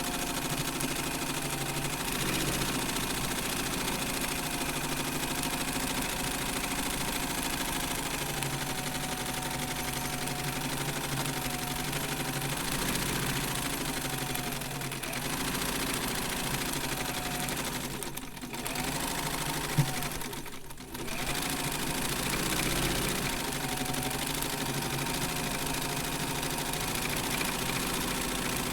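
Sewing machine running steadily, its pitch wavering slightly up and down. About two-thirds of the way through it dips briefly twice, with a sharp click between the dips.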